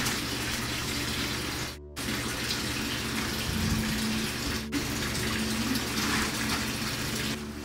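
Water running steadily into a tub, as when an inflatable birth pool is being filled, with a brief cut-out just before two seconds in.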